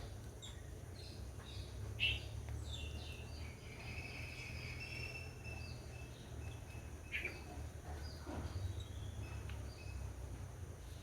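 Small birds chirping on and off, with one longer whistled call around the middle, over a steady low background rumble; a few short soft clicks stand out here and there.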